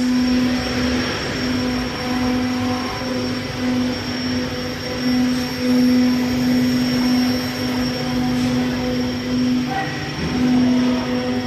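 CNC router running: a steady motor hum that breaks off and comes back every second or so as it moves, over a constant noise of the machine working.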